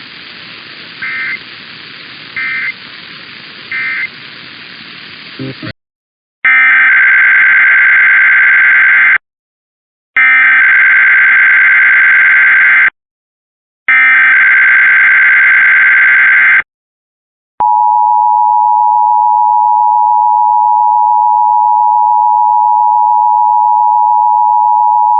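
Emergency Alert System tones. First, radio hiss with three short data beeps: the end-of-message code closing the previous test. Then three loud SAME header data bursts of about three seconds each, a second apart. Then the steady two-tone EAS attention signal, held about eight seconds.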